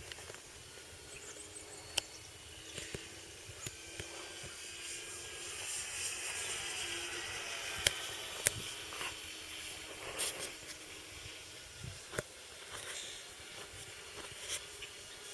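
Electric RC Cessna's motor and propeller whining as it flies past, growing louder and bending in pitch through the middle of the pass, over a steady hiss, with a few sharp clicks.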